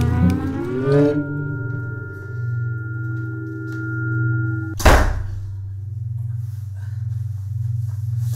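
Low droning film-score music with held ringing tones that stop almost five seconds in. The drone is broken there by a single loud thunk, and a smaller knock comes near the end.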